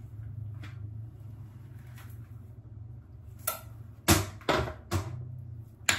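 A handful of sharp knocks and clacks, like objects being handled and set down, come between about three and a half and six seconds in, over a steady low hum.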